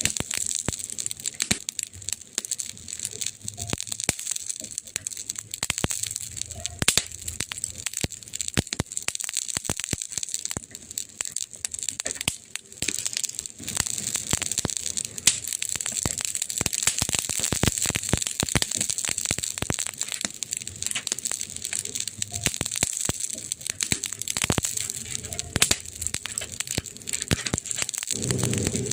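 Wood fire crackling: a dense run of irregular snaps and pops from burning wood over a steady hiss of flames, with a deeper low rumble joining near the end.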